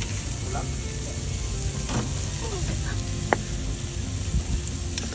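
Meat sizzling on a barbecue grill, a steady hiss, with a few sharp ticks, the loudest about three seconds in.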